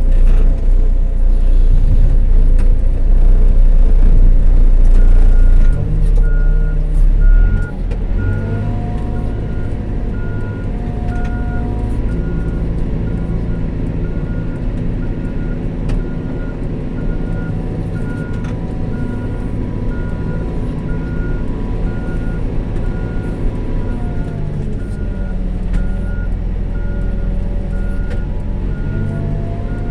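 Caterpillar 416F2 backhoe loader's diesel engine running under load, working hard for the first several seconds and then settling to a steadier, lower run with small shifts in engine speed. From about five seconds in, a reverse alarm beeps at a steady rate of about one and a half beeps a second.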